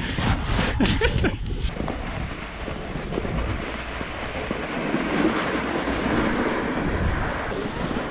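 Wind rushing over an action camera's microphone during a snowboard run downhill, with the steady hiss of a snowboard sliding over snow.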